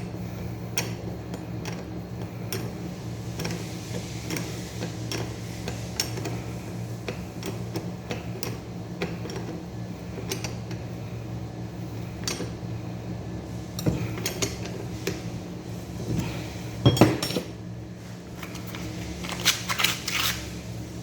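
Hand tools and metal parts of a starter motor clinking and knocking during bench work: scattered light clicks, with a few louder clanks toward the end. A steady low hum runs underneath.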